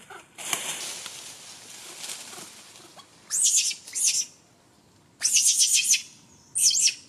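Infant rhesus macaque screaming in four short, high-pitched bursts, with the pitch wavering within each.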